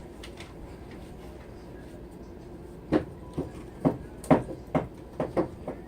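Quiet room noise for about three seconds, then a string of about eight light, irregular knocks and clicks from containers being handled.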